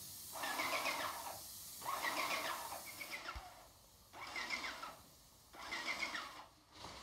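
Airless paint spray gun fired in short passes, each pass a hiss with a wavering high squeal, about four bursts a second or so apart.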